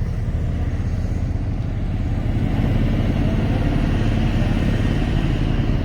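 Off-road vehicle's engine running steadily at low revs, growing a little louder about halfway through.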